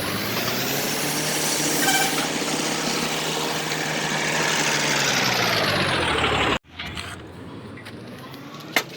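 Truck engine running steadily, its pitch drifting slightly up and then down. It stops abruptly about six and a half seconds in, leaving a quieter background with a single sharp click near the end.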